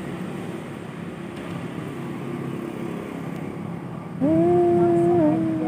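Steady street traffic noise. About four seconds in, a loud held tone cuts in and lasts about a second.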